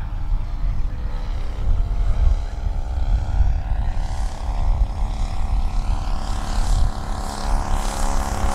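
Engine and propeller of a radio-controlled scale model of a Van's RV-4 aircraft droning steadily on a landing approach, growing louder as it nears. A low rumble, likely wind on the microphone, runs underneath.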